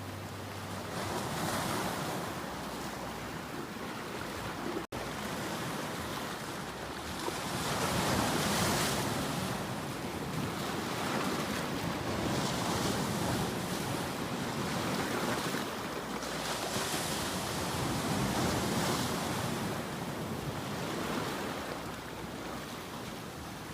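Ocean waves breaking and washing onto the shore, the surf swelling and easing every few seconds. The sound cuts out for an instant about five seconds in.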